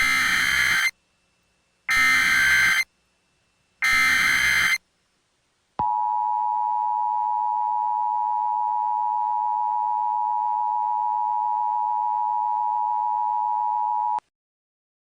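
Emergency Alert System header: three raspy digital data bursts about a second long, two seconds apart. Then the steady two-tone EAS attention signal is held for about eight seconds and cuts off abruptly, announcing an emergency alert broadcast.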